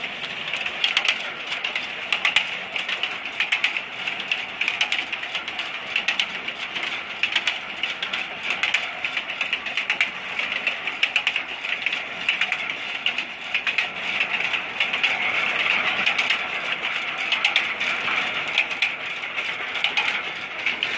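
Old stationary 'black engine' and the oil expeller it drives through long flat belts, running: a steady high hiss with constant rapid clicking and clatter from the belts and machinery.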